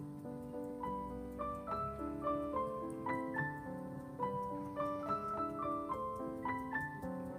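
Background piano music: a gentle melody of single notes stepping up and down over held lower notes.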